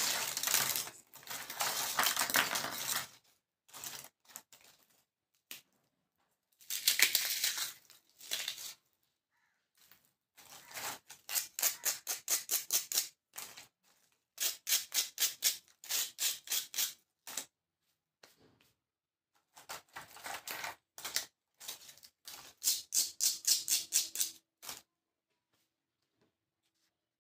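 Dry, crisp baked rusks crackling and crunching as they are handled and broken apart by hand. The sound comes in bursts of rapid sharp cracks with short pauses between.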